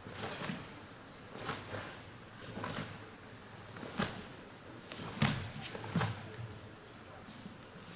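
Sharp snaps and thuds from a karateka performing a kata: the cotton uniform cracks with each fast strike and block, and bare feet thud on the mat. About ten uneven snaps come in quick clusters, the loudest a little past five seconds in and at six seconds.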